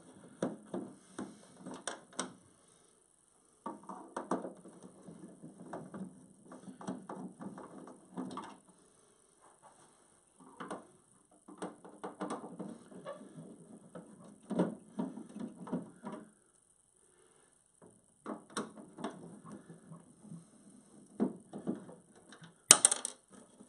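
Screwdriver turning screws out of a dehumidifier's plastic casing, in several runs of rapid small clicks and creaks with short pauses between. A single sharp, louder click comes near the end.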